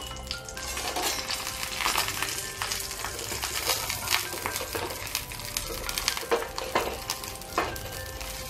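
Coconut oil sizzling and crackling under a banana-leaf parcel of fish in a hot pan, with a steady hiss and frequent small crackles, while a metal spatula scrapes the pan as the parcel is turned over.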